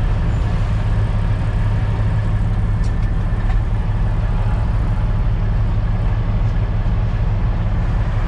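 Caterpillar C15 diesel engine of a Kenworth T800 semi-truck running steadily at low revs, a deep even hum heard from inside the cab.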